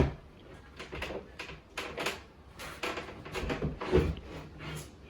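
A loose kitchen countertop being pried and shifted: a sharp knock at the start, then a string of irregular knocks and scraping clatters.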